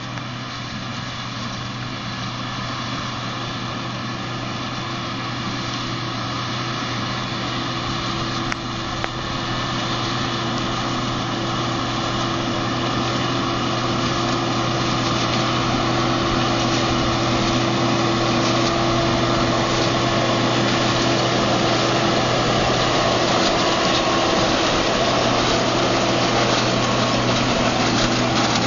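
JCB Fastrac tractor's diesel engine running steadily under load while it pulls a Krone loader wagon picking up grass, growing gradually louder as it approaches.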